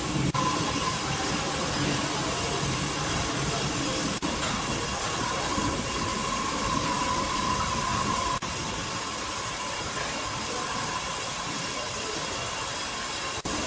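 Sawmill machinery running steadily: a continuous hissing noise with a faint, steady whine, in several short takes that cut from one to the next about every four seconds.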